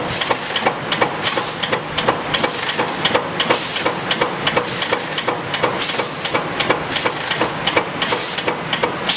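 Automatic fan-guard inner-ring spot welding machine running: sharp mechanical clacks several times a second, with a burst of air hiss about once a second.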